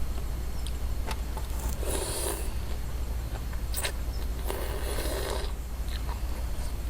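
A person slurping noodle soup: two short noisy slurps, about two seconds in and again about five seconds in, with a few faint clicks between.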